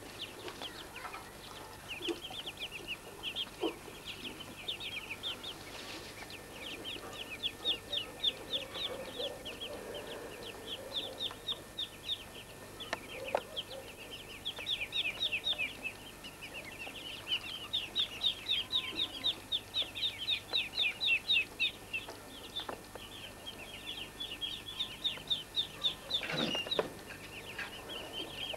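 Muscovy ducklings peeping: fast series of short, high, falling calls, many a second, with a brief knock near the end.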